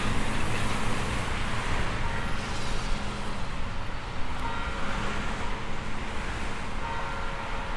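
Steady city traffic noise, an even rumble and hiss of road traffic heard over the town, getting a little quieter toward the end.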